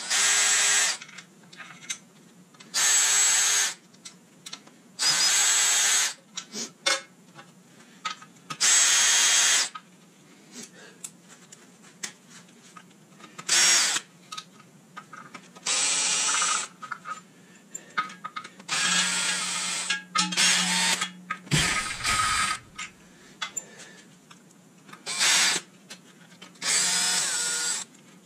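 Cordless drill with a socket spinning out the upper oil pan bolts of a VQ37VHR engine, in short runs of about a second, eight or so times, with small metal clicks of sockets and bolts between runs.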